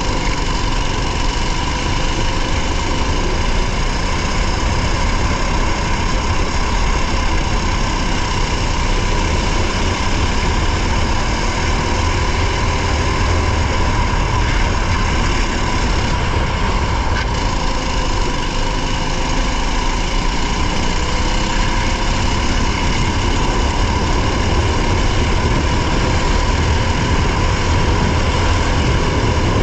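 Race car engine running hard under load with heavy road and wind rumble, heard from inside the car; the engine note is steady, with only slight rises and falls.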